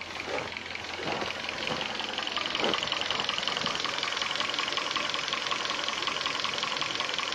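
Hyundai Sonata engine running with a fast, steady metallic knocking that grows louder over the first couple of seconds, then holds. The owner suspects the timing chain.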